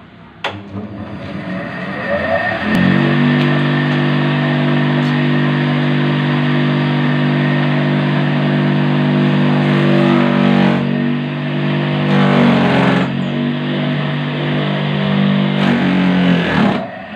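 Homemade banana-stem chopper driven by a second-hand water-pump motor: a switch clicks, and the motor spins up over about two seconds to a steady hum. Its pitch then sags briefly several times as banana stem is fed in and the blades cut it.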